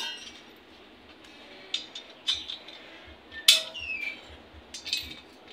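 Painted-metal satellite dish parts, the LNB arm bracket and its bolts, clinking and knocking as they are handled and fitted together: a few separate clinks, the loudest about three and a half seconds in with a short ring after it.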